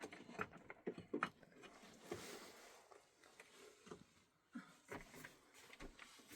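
Quiet handling noises: scattered small clicks and knocks, with a short rustling hiss about two seconds in.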